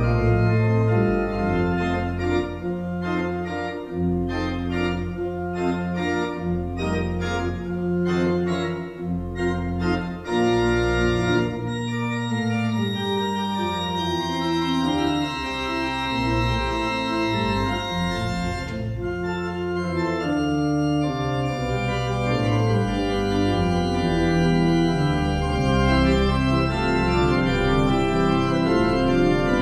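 Church pipe organ playing a piece: sustained chords with a moving line above and deep bass notes underneath.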